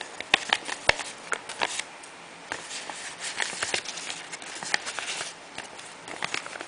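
Paper wrapper and packaging handled and folded by hand: irregular crinkling and crackling, with the sharpest crackles in the first second or two.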